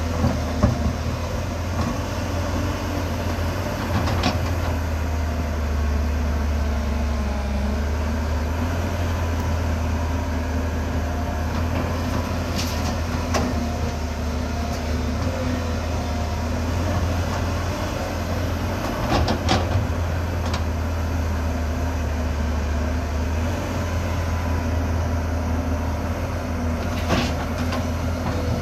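JCB 380 tracked excavator's diesel engine running steadily close by, a deep hum, with a few short sharp knocks from the machine scattered through.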